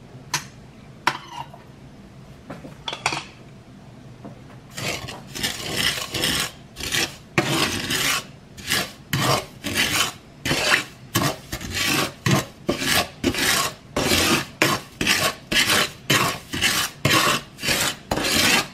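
Wooden spatula scraping and stirring granulated sugar through oil in a frying pan, in regular rasping strokes about two a second that begin about five seconds in, after a few faint clicks. The pan is not yet hot, so the sugar is still grainy and there is no sizzle.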